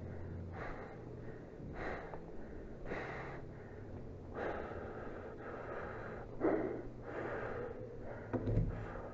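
A person breathing heavily close to the microphone, one noisy breath every second or so, with a couple of louder ones near the end.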